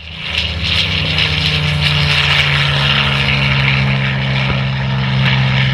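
Piston-engined propeller aircraft running, loud and steady.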